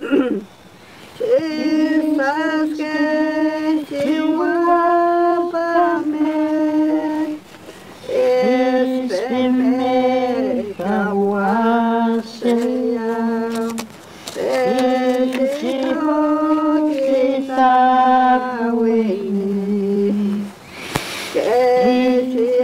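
A slow hymn sung without accompaniment, in long held notes grouped in phrases with short breaks for breath between them.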